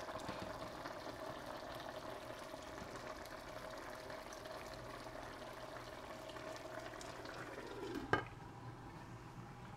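Pot of curry chicken simmering on an electric stovetop, a steady bubbling hiss. About eight seconds in the pot lid is set down with a single sharp clink, and the hiss is a little quieter after it.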